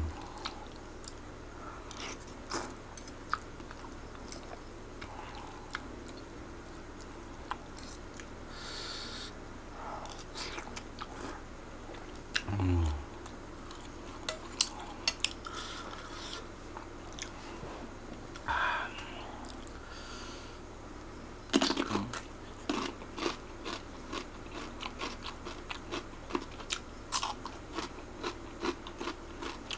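Close-up eating of Aceh fried noodles: chewing with wet mouth clicks, and occasional clinks of cutlery against the plate. The clicking gets denser in the second half.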